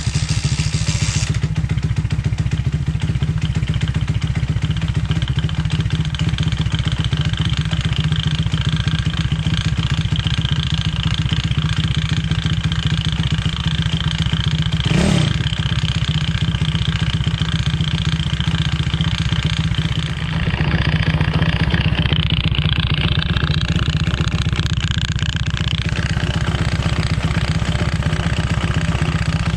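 Small single-cylinder motorcycle engine running steadily: the Chinese-made replacement engine in a Honda Gorilla mini-bike. There is a brief dip in level about two-thirds of the way through, after which the sound changes somewhat.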